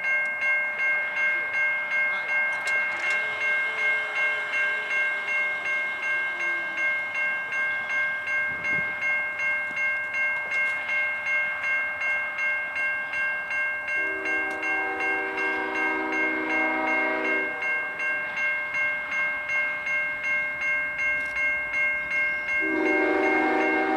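Railroad grade crossing bell ringing steadily at about two strikes a second, with a freight locomotive's air horn blowing a long blast a little past halfway and starting another near the end.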